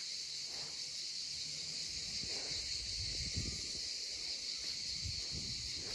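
Steady high-pitched buzz of a cicada chorus, with soft footsteps on a path.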